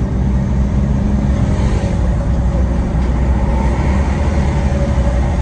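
Steady engine and road rumble of a taxi driving in city traffic, heard from inside the cab.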